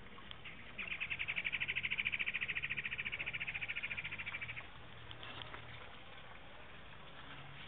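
A grasshopper buzzing in a rapid pulsed rattle, about a dozen pulses a second. It starts suddenly about a second in and stops after nearly four seconds.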